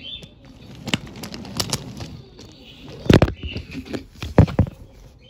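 Handling noise from toy train cars and the recording phone: a run of irregular knocks and clacks, with two heavy thumps about three seconds and four and a half seconds in.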